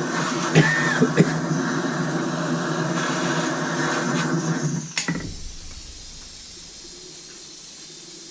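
A small electric motor, such as a power tool's, running with a steady hum and a few clicks, then switched off with a sharp click about five seconds in, leaving a faint low rumble.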